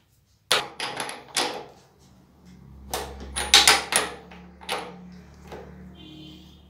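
Ratchet wrench clicking in short runs of metal strokes as it tightens the motorcycle's steering stem nut over newly fitted steering-head bearing cups and balls, with the strokes thickest a few seconds in. A faint low hum sits underneath from about halfway.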